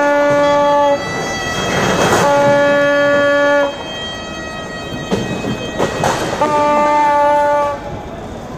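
A horn blown in three long, steady blasts of about a second and a half each, on one unchanging note. Street din and a few sharp bangs come between the blasts.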